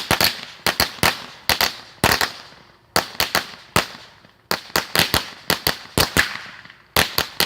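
Fireworks going off: a long run of sharp, irregular bangs, about two or three a second with short pauses, each trailing off briefly.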